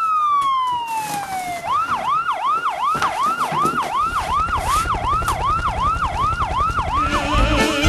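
Electronic emergency-vehicle siren: a long wail falling in pitch, then switching to a fast yelp of about three rising sweeps a second.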